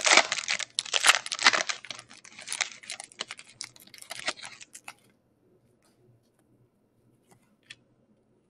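A foil trading-card pack wrapper being torn open and crinkled by hand, a dense crackling that stops about five seconds in. A few faint ticks follow.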